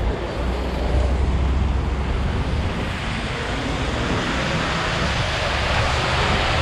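Steady rushing hiss of wind on the microphone and bicycle tyres on rain-soaked pavement while riding, with a low wind rumble that swells and fades.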